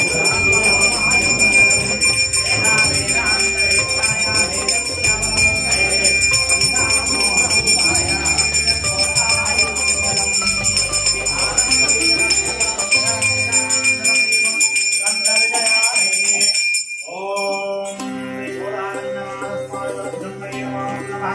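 Bells ringing steadily over music; about 17 seconds in the ringing stops and the music carries on.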